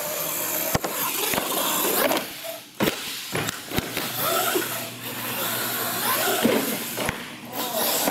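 Radio-controlled monster truck driving hard on a concrete floor, its motor whine rising and falling with the throttle over tyre noise. Several sharp knocks come through as it hits ramps and lands.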